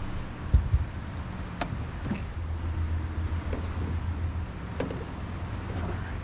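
Steady low hum of a boat motor, stronger in the middle, with a heavy thump about half a second in and a few sharp knocks on the boat.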